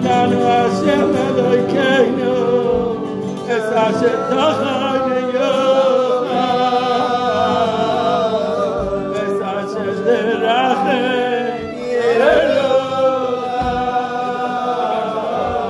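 Kumzitz singing: a group of voices singing a slow melody together over steady held low tones. There is a short dip in loudness near the end before the singing swells again.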